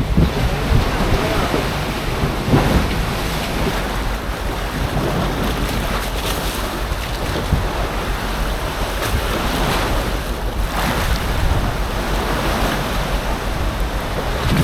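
Storm-driven waves washing and breaking in a choppy anchorage, with strong wind gusting across the phone's microphone as a low, uneven rumble.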